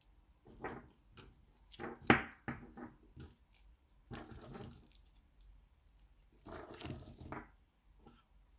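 Plastic-wrapped lollipops rustling in the hand and knocking down onto a wooden tabletop as they are laid out, in several short bursts of crinkling and clacks, the sharpest knock about two seconds in.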